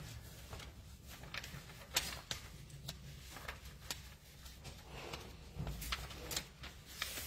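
Scattered light clicks and small knocks of small objects being handled and set down, over faint room tone.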